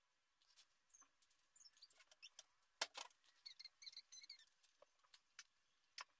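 Faint graphite pencil strokes scratching and ticking on paper, in short irregular strokes, with a sharper pair of ticks about halfway through.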